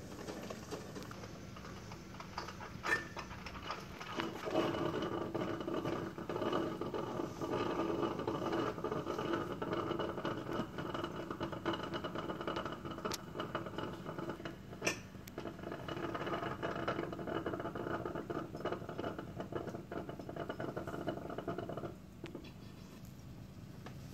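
Electric drip coffee maker brewing, its steady drip sound building about four seconds in and dropping away near the end, with a few scattered clicks.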